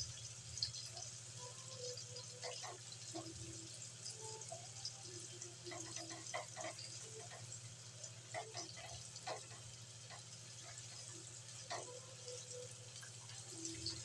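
Chicken pieces deep-frying in a wok of hot oil: a steady sizzle with scattered pops and crackles, and a plastic spatula scraping and knocking against the wok as the pieces are turned. A low steady hum runs underneath.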